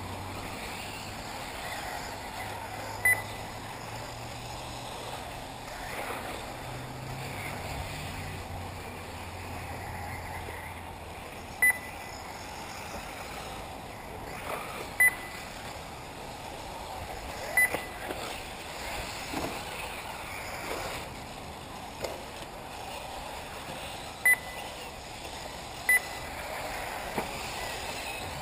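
1/8-scale electric RC off-road buggies running on the dirt track, a steady background of motors and tyres, with about six short high beeps a few seconds apart from the race's lap-counting system as cars cross the timing line.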